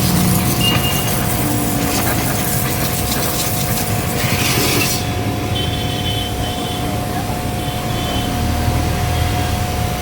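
Ideal IDSR 210 high-pressure washer running with a steady hum while its jet hisses. The spray hiss cuts off sharply about halfway through, and the hum carries on.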